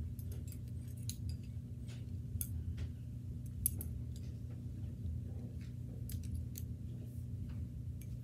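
Knitting needles clicking and tapping against each other at irregular moments as stitches are worked, over a steady low hum.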